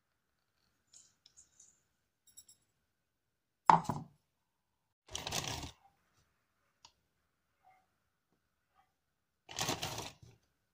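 Handling sounds from stainless steel bowls and dry bread crumbs: a few faint clicks, then a sharp knock about four seconds in, followed by two short scraping, rustling bursts of about a second each.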